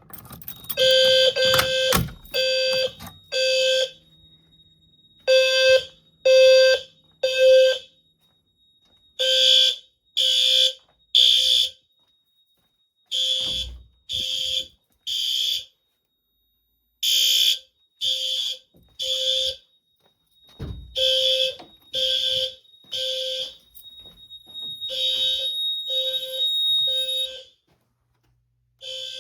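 Fire alarm horns sounding the three-pulse temporal evacuation pattern: three short horn blasts, a pause, and again, about every four seconds. This is a full system alarm set off from a manual pull station. A faint steady high-pitched tone runs underneath through most of it.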